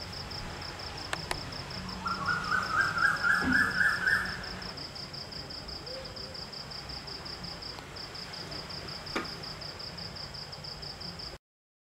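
An insect, likely a cricket, trilling steadily in a high, rapidly pulsing chirp. About two seconds in, a bird calls a quick run of notes that climb in pitch and grow louder. The sound cuts off shortly before the end.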